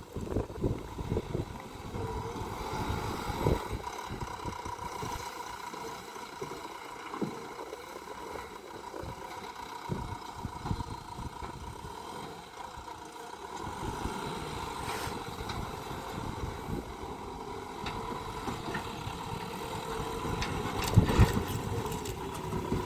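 JCB 3DX Plus backhoe loader's diesel engine running steadily, with scattered knocks and a louder clunk near the end.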